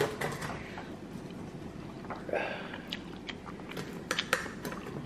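Pizza cutter wheel rolling through a pizza's crust, a string of crunching crackles and clicks as it is pushed back and forth.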